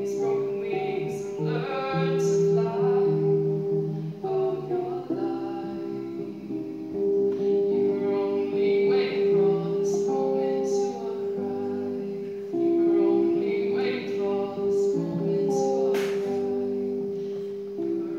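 A solo voice singing with acoustic guitar accompaniment, many notes held for a second or more.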